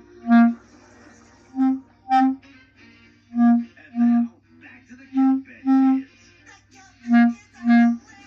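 Clarinet playing short detached notes in pairs, each pair about a second and a half after the last, with two pitches that alternate from pair to pair.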